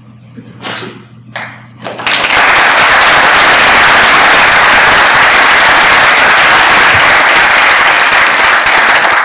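Audience applause: a few scattered claps, then loud, dense clapping that breaks out about two seconds in and thins to single claps near the end.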